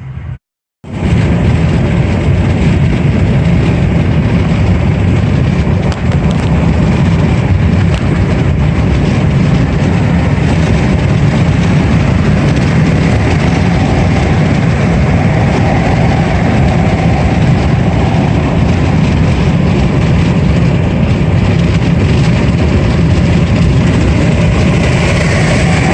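Pickup truck driving at road speed: a steady, loud rumble of road and engine noise, starting suddenly just under a second in after a brief moment of silence.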